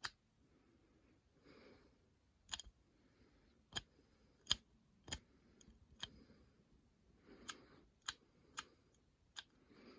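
Sharp, irregularly spaced metallic clicks from a GEARWRENCH 120XP swivel-head ratchet being worked in the hand, about a dozen in all, mostly from a couple of seconds in until near the end.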